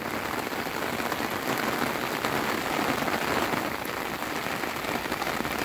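Steady rain falling, a dense run of drops striking an umbrella held over the phone.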